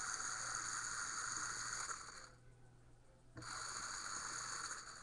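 Lego Power Functions electric motor spinning the mixer's plastic gear train, a steady whirring whine. It stops about two seconds in and starts again about a second later, running until just before the end.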